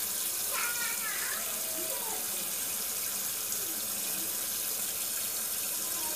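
Kitchen tap running steadily into a stainless steel sink, the stream splashing over a fish held under it.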